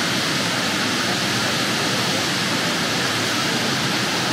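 Whitewater of the Josephine Falls creek rushing around large boulders: a steady, even rush of fast-flowing water.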